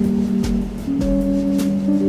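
Background music: held notes over a steady drum beat.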